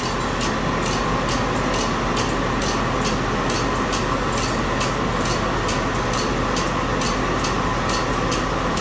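Steady background hiss with a light, regular ticking at a little over two ticks a second.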